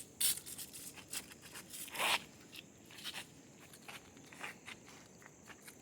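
Irregular crunching and rustling, with a louder scrape about two seconds in, the kind of noise made while walking with the recording device in hand.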